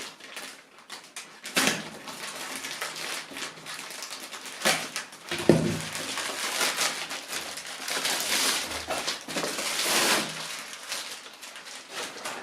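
Packaging being handled and unwrapped around a boxed keyboard: irregular rustling and crackling with scattered clicks and a dull knock about halfway through.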